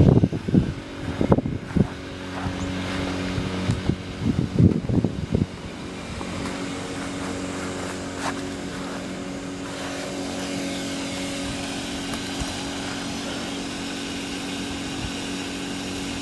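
Kipor IG1000P inverter generator running steadily at full output with its smart throttle off, heard from some distance as an even engine hum. Irregular thumps and rustles sound over the first five seconds or so.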